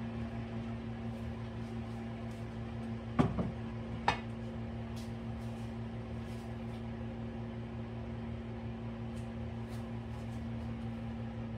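A steady electrical hum, with a few sharp knocks about three seconds in and one more a second later.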